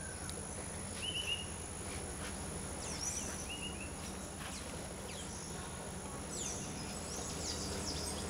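Natural wetland ambience: a steady high-pitched insect drone under scattered bird calls. A quick pair of chirps comes about a second in and again about three and a half seconds in, and a run of short falling calls starts from about six and a half seconds.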